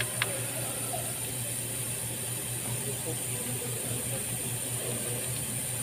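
A steady low machine hum runs throughout, with a single sharp click just after the start as a coil hold-down bolt is handled.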